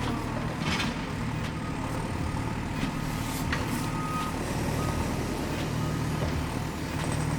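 Heavy truck engine running steadily, with a few short reversing beeps about four to five seconds in.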